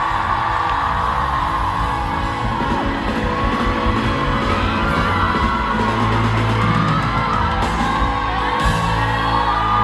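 A pop song with singing plays loud over a concert hall's sound system. A crowd of fans screams and cheers over the music throughout.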